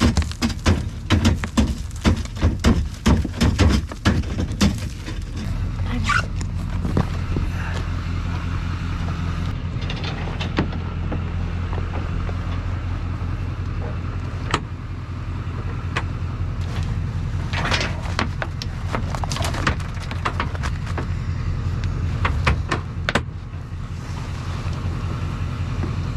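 A vehicle engine running steadily at a low, even pitch. Rapid clattering knocks fill the first few seconds, and scattered clicks and knocks come later.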